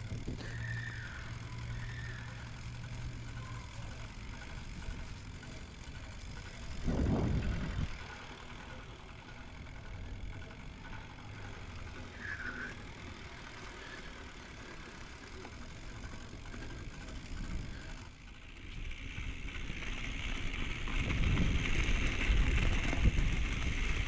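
Intense M6 mountain bike being ridden, heard from a helmet chin-mounted camera: a steady low rumble of tyres and wind on the microphone, with a loud thump about seven seconds in. The rolling noise grows louder and brighter over the last few seconds.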